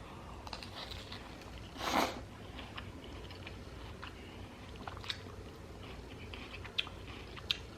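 Close-up chewing of a carne asada taco in a crunchy jicama wrap, with a louder crunch about two seconds in and soft chewing clicks after.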